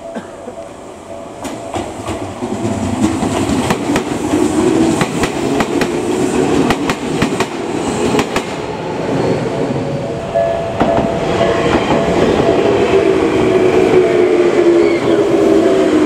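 Electric commuter trains on the Tokyu Ikegami Line running through the station and getting louder, their wheels clicking over rail joints and points. In the second half a train passes close with a slowly falling motor whine.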